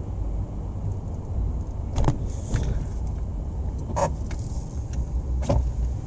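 Low steady road rumble of a Jeep Wrangler Unlimited rolling slowly on new knobby Goodyear tires over wet concrete, heard from inside the cabin. A few short clicks come about two, four and five and a half seconds in.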